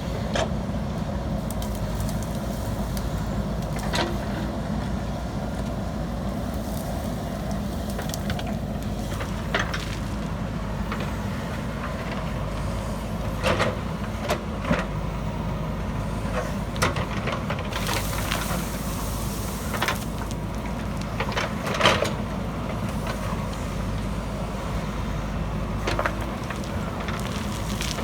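JCB 3DX backhoe loader's diesel engine running steadily under load, with scattered knocks and clunks from the machine at work; the loudest knock comes a little past the middle. A brief hiss lasts about two seconds shortly before it.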